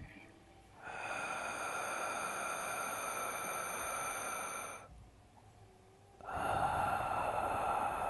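Ujjayi breathing: a long, soft hiss of breath drawn through a narrowed throat, lasting about four seconds. After a short pause a second breath of the same kind begins about six seconds in.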